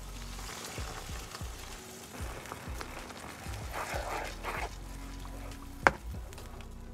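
Coconut milk pouring into a hot frying pan of masala, then a wooden spatula stirring through the liquid, with one sharp knock just before six seconds in; background music plays under it.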